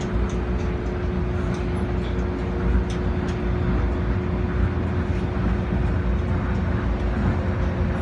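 Tokyo Monorail car running at speed, heard from inside the car: a steady low rumble with a constant hum over it.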